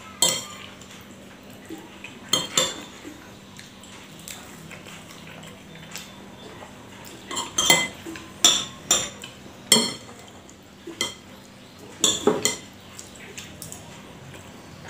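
Metal spoon clinking and scraping against a ceramic plate while eating rice: sharp separate clinks, a few at first and then a quick run of them from about seven seconds in.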